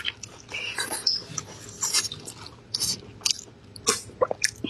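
Chewing and lip-smacking on stewed beef rib meat: irregular wet smacks and mouth clicks, several in quick succession.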